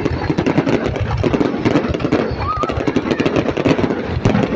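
Dense crowd noise: many people's voices mixed with motorbike engines running, and a short high whistle about halfway through.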